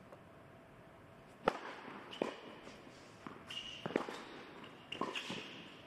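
Tennis ball struck by rackets and bouncing on an indoor hard court: a few sharp, irregularly spaced pops and thuds, the loudest about a second and a half in, with a slight echo of the hall.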